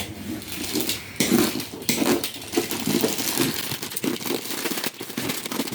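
Toy packaging crinkling, crackling and tearing in irregular bursts as it is handled and opened.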